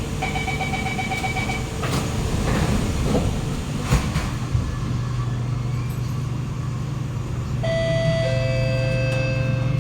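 Door-closing chime beeping for about a second and a half, then the train doors knocking shut around two and four seconds in. Near the end the Kawasaki Nippon Sharyo C751B's traction motors start up with a steady whine of several tones as the train begins to move off.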